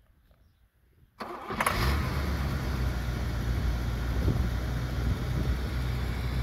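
1978 Mercedes-Benz 450 SLC's 4.5-litre V8 started warm: a brief crank about a second in, then it catches at once and settles into a steady idle.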